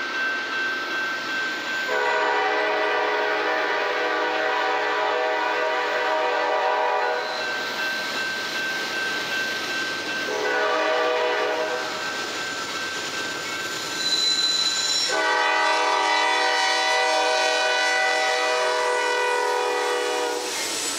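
Freight locomotive air horn sounding a chord of several tones in three blasts: long, short, then long, the ending of a grade-crossing signal. The lead locomotive is a GE Dash 9-40CW, which reaches the microphone near the end.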